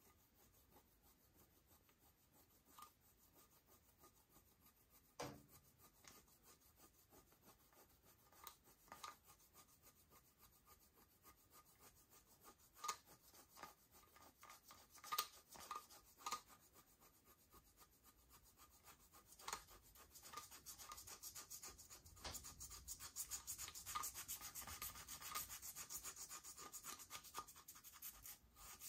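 Slime being squished and mixed by hand, faint: scattered sticky pops and clicks at first, then about two-thirds of the way in a denser, steady crackling as the slime is worked continuously.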